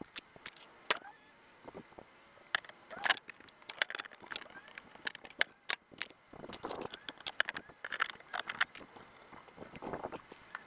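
Sped-up handling noise from assembling a Gorilla Carts dump cart: quick clicks and knocks of its metal frame pieces and plastic tub, with short chirpy fragments mixed in.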